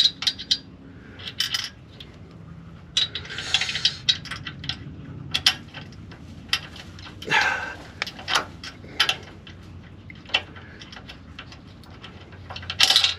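Hand tools and steel suspension parts clinking and clattering irregularly as bolts and brackets are worked on.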